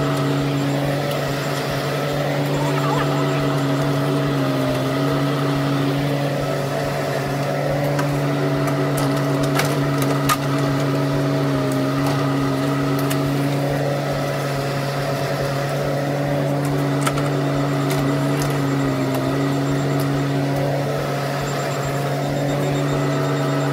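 Bobcat E10 mini excavator's diesel engine running steadily while digging, its pitch dipping briefly now and then as the hydraulics take load. A few sharp knocks come about ten seconds in.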